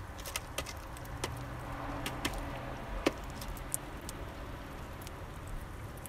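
Irregular sharp clicks and taps of a bullfinch pecking and cracking sunflower seeds in a tray of seeds and husks, the loudest click about three seconds in. A faint low hum runs under the clicks from about one to three seconds in.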